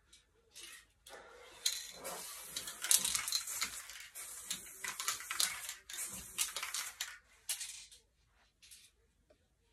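Aerosol spray paint can hissing in a run of short and longer bursts, starting about a second in and stopping about eight seconds in.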